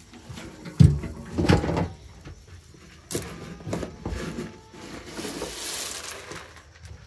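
A galvanized metal can lid clanks down on the floor about a second in, with another knock just after. Then a scoop digs into chicken feed pellets in the metal can, clattering, and pellets pour off the scoop in a rattling hiss near the end.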